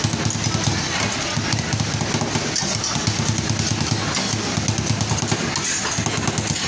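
Two metal spatulas chopping rapidly on a steel ice-cream cold plate, cutting brownie and chocolate chips into the ice cream: a quick, continuous clatter of metal taps.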